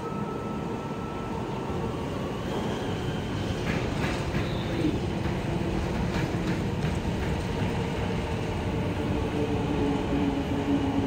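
MTR East Rail Line R-Train electric multiple unit pulling into an underground platform behind platform screen doors. Its rumble grows louder, with a few clicks about four seconds in, and a motor whine that sinks slightly in pitch near the end as the train slows.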